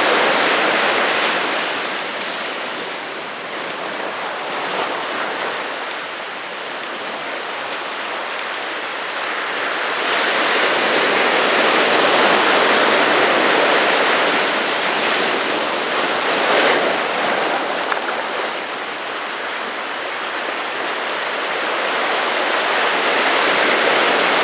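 Pacific Ocean surf washing onto the beach: a continuous rush of breaking waves that swells and fades slowly. It is louder near the start, again around the middle, and near the end.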